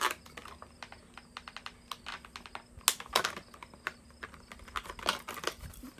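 Clear plastic packaging insert of a Funko Pop vinyl figure being handled and pulled apart: irregular crackles and clicks, loudest around three seconds in and again near five seconds.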